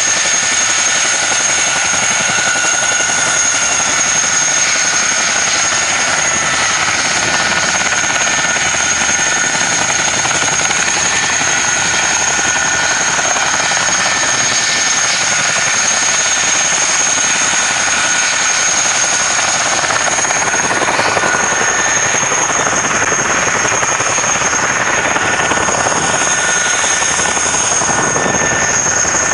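Military helicopters, a CH-47 Chinook and UH-60 Black Hawks, running on the ground with rotors turning: a loud, steady rush of rotor and engine noise with a constant high-pitched whine.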